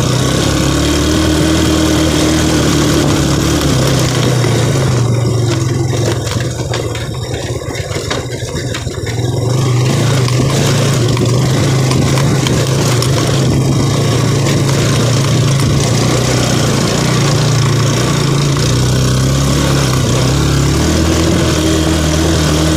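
Motorcycle engine running as the bike rides a rough dirt track, with a steady noisy rush over it. The engine sound eases off for a few seconds about five seconds in, then pulls steadily again.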